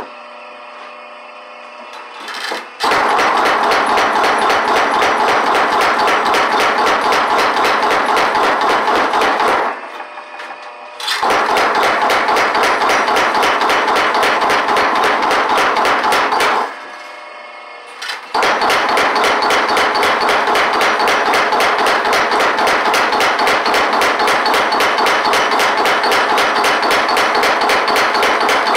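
Homemade Da Vinci-style cam power hammer, a sledgehammer head on a pivoting arm, pounding hot steel on an anvil in rapid, even blows. The blows come in three long runs; in the two short pauses between them, only the steady hum of the running drive is heard.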